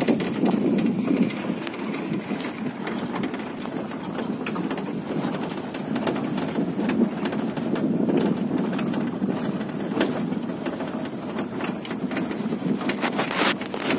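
Vehicle driving along a rough dirt track: steady engine and road noise, with frequent rattles and knocks from the bumpy ride.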